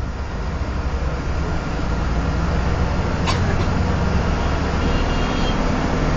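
Bus engine and road noise heard from inside the cabin while driving: a steady low drone that grows somewhat louder over the first few seconds. A brief sharp tick about three seconds in.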